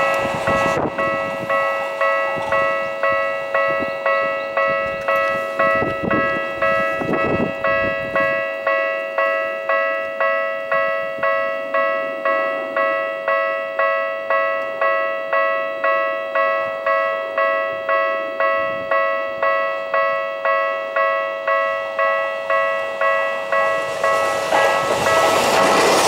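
Japanese level-crossing electronic alarm bell ringing with even, repeated dings, about one and a half a second. A Tokyu 5050 series train rumbles away over the first few seconds. Near the end a Seibu 40000 series train runs in and the rumble of its wheels rises over the bell.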